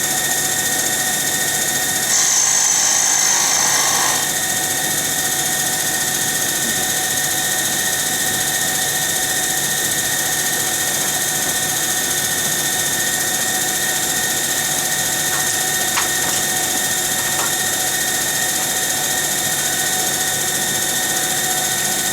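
Cue lathe running steadily with a constant whine. About two seconds in, a cutting tool faces off the end of a G-10 rod for about two seconds, giving a brief louder hissing cut.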